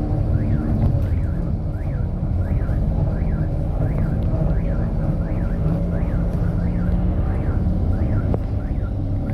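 City bus engine and road noise: a steady, heavy low rumble while driving. Over it, a faint rising-and-falling chirp repeats about every two-thirds of a second.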